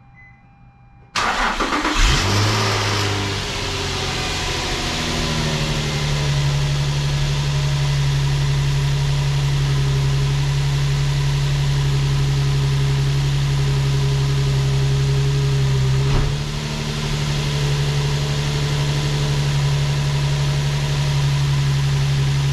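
Nissan 350Z's 3.5-litre V6 starting: the starter cranks about a second in, the engine catches and flares up, then settles into a steady idle on its 3D-printed intake. Late on there is one brief click and dip in the idle.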